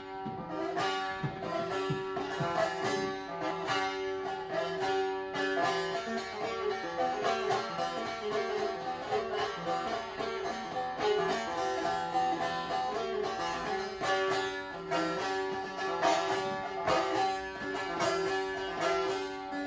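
Plucked string instrument playing a fast run of notes over a steady ringing drone note: the instrumental introduction to a Turkish folk song.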